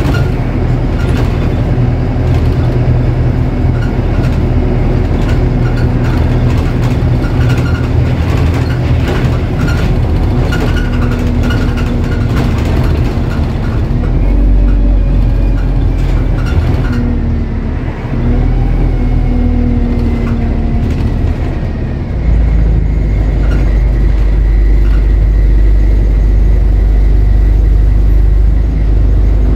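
A bus heard from inside as it drives along: the engine runs steadily, its note shifting in pitch a few times partway through, with frequent rattles and knocks from the bodywork.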